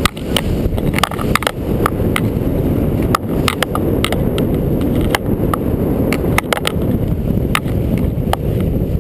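Small fibreglass fishing boat under way through choppy sea: a loud, steady rumble of hull, water and wind, broken by frequent irregular sharp knocks and rattles.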